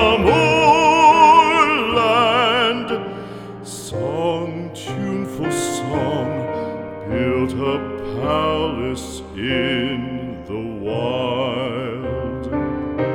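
Background music: a slow, tender song, with a voice holding long notes with vibrato over soft accompaniment.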